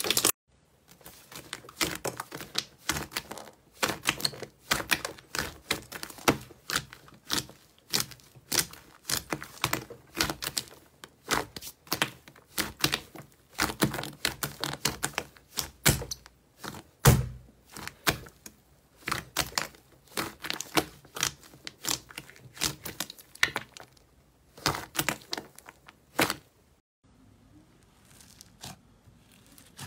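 Hands squeezing and poking thick slime, giving rapid, uneven clicks and pops as air pockets burst, with one loud pop about 17 seconds in. It turns much quieter near the end as a hand presses into foam-bead slime.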